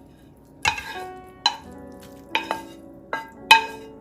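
A metal serving utensil clinking against a dish while sautéed spinach is served out: five sharp clinks spread over a few seconds, each ringing briefly.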